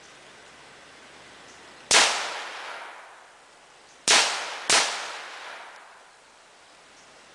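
Three gunshots: one about two seconds in, then two more about half a second apart later on, each ringing off for about a second.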